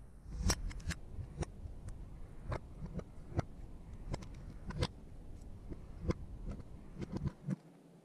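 Irregular clicks and light knocks from hands working plastic parts and a spring hose clamp around a dishwasher drain pump and its drain hose.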